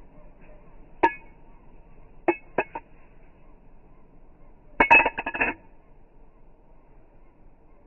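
Balisong handles clicking: a few separate sharp metallic clicks, then a quick rattling run of clicks about five seconds in.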